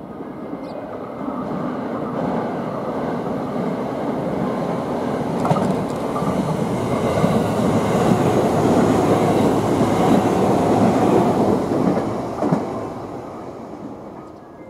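Two coupled 521 series electric multiple units passing close by: the rumble of wheels on rail builds as the train approaches, peaks as the cars go past, then fades away, with a few sharp clacks from the wheels over rail joints.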